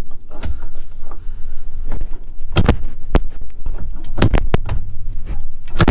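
Metal clanks and clicks as a CV axle is worked and twisted into the splines of the wheel hub on a Can-Am Maverick, with several sharp knocks, some in quick pairs, and a brief metallic ring near the start.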